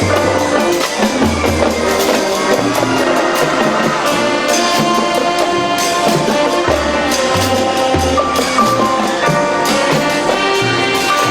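Marching band playing: brass holding and moving through sustained chords over bass drums and snare-line percussion strokes.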